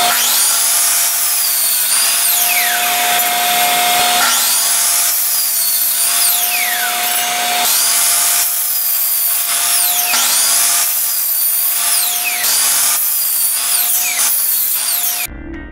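Craftsman compound miter saw cutting 2x4 lumber, several cuts one after another, each with a falling whine, over a steady hum from the shop vacuum hooked to the saw's dust port.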